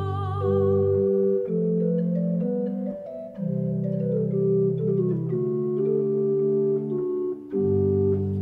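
Chamber organ playing a solo interlude of held chords over a stepping bass line. A soprano's held, wavering note ends within the first second.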